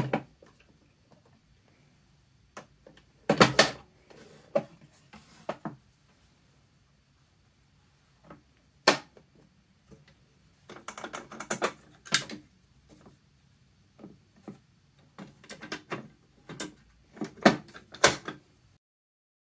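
Clicks, knocks and clatter of hard plastic parts on a PFAFF Synchrotronic 1229 sewing machine being handled: the detachable extension table snapping off the free arm and covers being opened and closed. The sounds come as separate clicks and short clusters of knocks with pauses between them.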